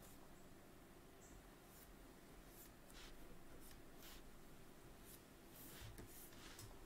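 Near silence: faint, short scratches of a stylus being drawn across a drawing tablet, several strokes a second or so apart, over a faint low hum.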